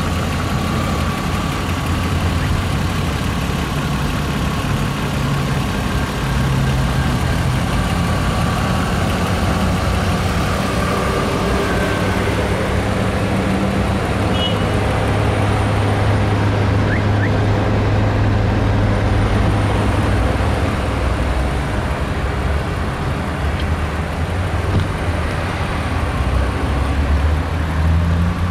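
A BMW X5 E53's 3-litre 24-valve inline-six engine running steadily at idle, with a low, even hum.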